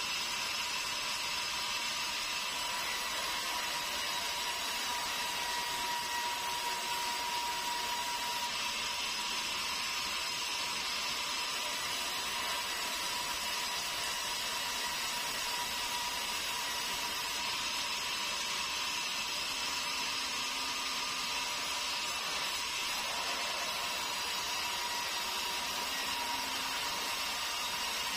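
Sawmill saw running steadily as a hill meranti log is fed through it: an even, high-pitched whir with a faint steady tone, unchanging throughout.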